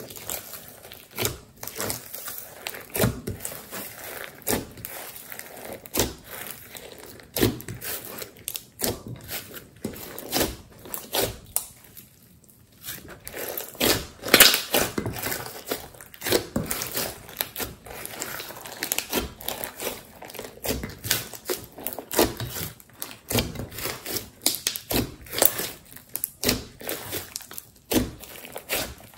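Glossy slime with sequins and glitter mixed in being folded, squeezed and pulled by hand: an irregular run of sticky clicks and pops, busiest about halfway through.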